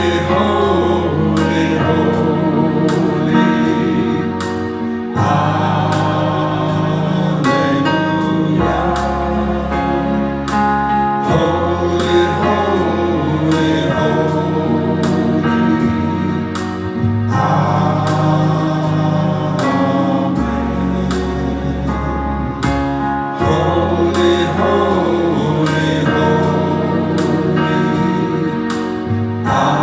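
Gospel praise song: voices singing over a band with held bass notes and a steady beat.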